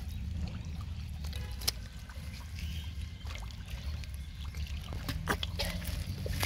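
Bare hands digging in wet mud and gripping a fish: scattered short wet squelches and clicks over a steady low rumble.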